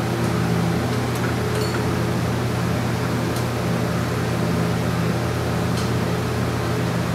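Steady low mechanical hum, like a fan or air handler running, with a few faint clicks as a small metal manifold and a grease tube are handled.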